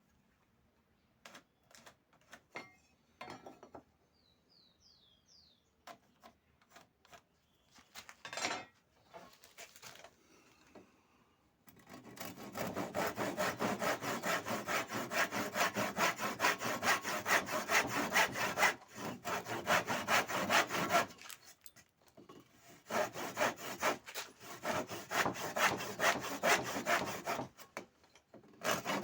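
Wood being worked by hand with fast back-and-forth rasping strokes, like a handsaw cutting. The strokes come in two long runs, starting about halfway through, with a short pause between them. Before that there are a few scattered light knocks from tools being handled.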